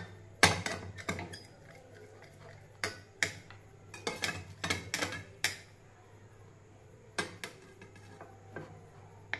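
Kitchen knife blade tapping and scraping against a plate as it presses a soft carrot mixture into a square shape: a scatter of irregular short clicks, over a faint low hum.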